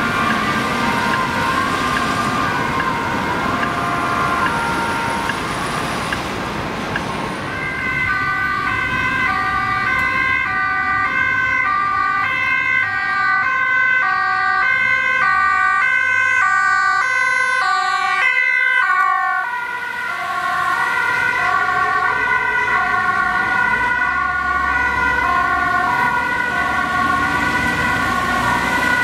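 Two-tone hi-lo sirens of Dutch emergency vehicles wailing over passing traffic. The alternation between the two pitches quickens from about eight seconds in, breaks off briefly about two-thirds of the way through, and then resumes at a slower pace.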